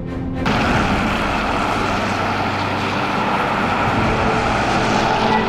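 Background music cuts off abruptly about half a second in. It gives way to loud, steady outdoor road noise from passing vehicles, mixed with wind on the microphone.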